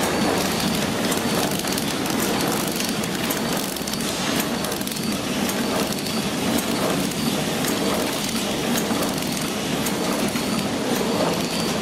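Horizontal flow wrapping machine for syringes running: a steady mechanical clatter with many small irregular clicks.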